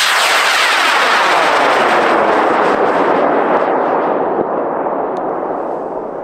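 High-power rocket motor burning at liftoff: a loud rushing roar that starts suddenly, sweeps steadily down in pitch as the rocket climbs away, and begins to fade after about four seconds.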